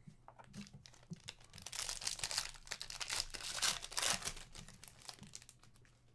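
The foil wrapper of a Panini Prizm hobby trading-card pack being torn open and crinkled by hand, in bursts of rustling loudest about two and four seconds in.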